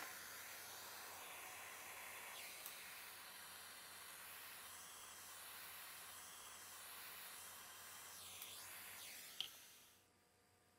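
Small handheld gas torch hissing steadily while its blue flame heats a brass igniter part for soldering, with a few faint clicks; a sharper click comes just before the hiss cuts off near the end.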